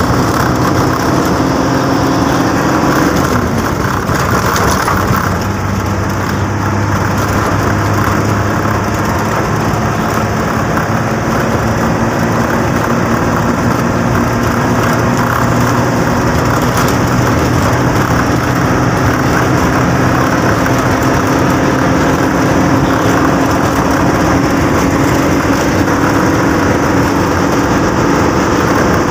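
Bus engine running steadily under way, with road noise around it; its pitch dips about three seconds in and creeps slowly up over the last part.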